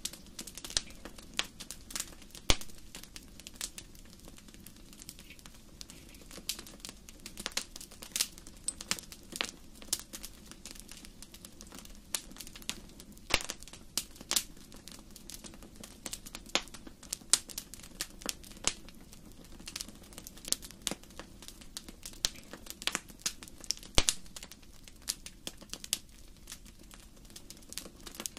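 Wood fire crackling in a fireplace: irregular sharp pops and snaps, a few louder ones about two and a half seconds in and about twenty-four seconds in, over a soft low rumble of the flames.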